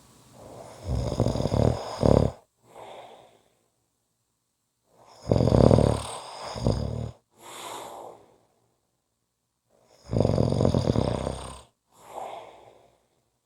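A person snoring slowly and regularly: three loud, rasping snores about five seconds apart, each followed by a shorter, quieter breath.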